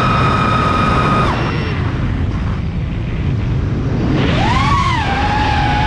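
Brushless motors of a 5-inch FPV freestyle quadcopter (T-Motor LF40 2450Kv) whining steadily at high throttle over rushing wind, then falling away about a second in as the throttle is cut. About four and a half seconds in, a whine rises and falls as the throttle is punched again, then settles to a steady, lower whine.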